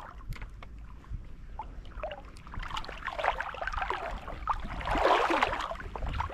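Water lapping and sloshing, growing louder toward the end, with a few light clicks in the first couple of seconds.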